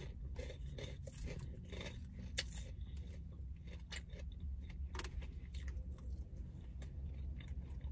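Plastic fork clicking and scraping in a plastic clamshell salad container, with lettuce being chewed, over a steady low hum.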